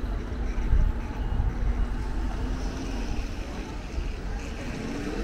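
Outdoor ambience: a low, uneven rumble, with faint voices in the background.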